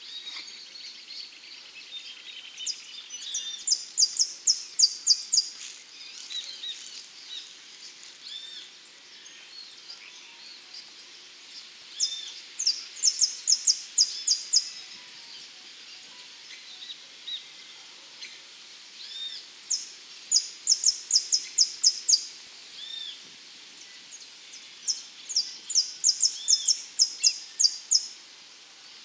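Saffron finch singing in four loud bursts of rapid, high, clipped notes, several seconds apart. Between the bursts there is a steady high trill and softer, scattered chirps from other birds.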